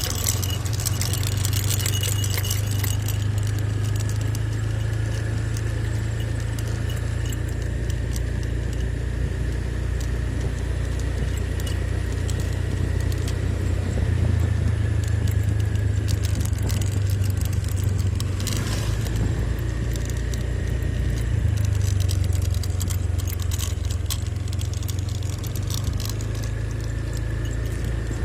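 A motor vehicle on the move, its engine running with a steady low hum and continual jingling and rattling.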